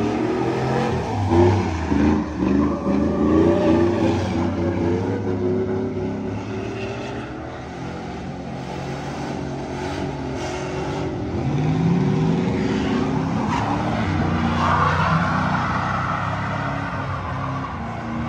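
Pickup truck engines revving hard, rising and falling repeatedly, as the tires spin in burnouts and donuts, with the rushing hiss of spinning tires underneath. The revving is thickest in the first few seconds and climbs again about two-thirds of the way through.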